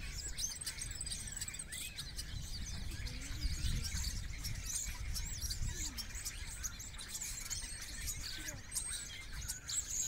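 A flock of small songbirds perched in a bare tree, chattering with many overlapping chirps and high whistles, over a low rumble.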